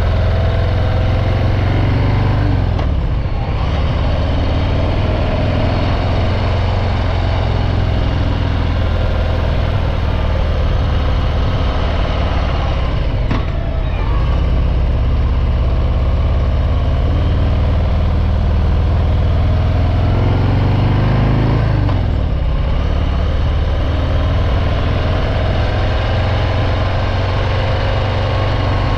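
Harley-Davidson Breakout 114's Milwaukee-Eight 114 V-twin through its stock exhaust, running steadily on the move. Its note dips and picks up again three times: about three seconds in, near the middle, and about three quarters of the way through.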